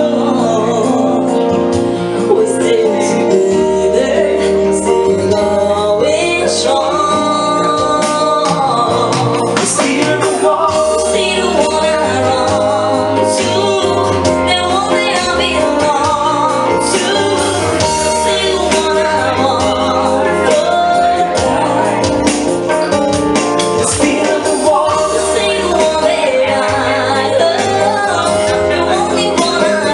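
A live band playing a song, with a woman singing lead over keyboards and drums with cymbals.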